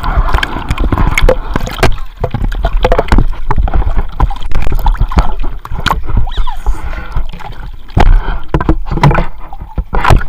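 Water splashing and sloshing in a small children's pool, with many sharp knocks and splashes over a low rumble.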